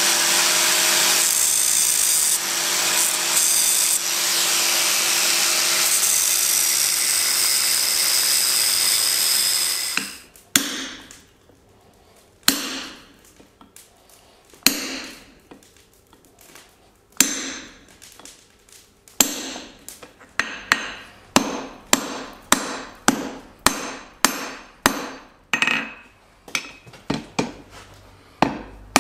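A hand hammer strikes hot steel on an anvil, forging an offset into a tong blank. There are a few spaced blows at first, then a steady run of about two blows a second, each ringing briefly. Before the hammering, a loud steady roar lasts about ten seconds and stops suddenly.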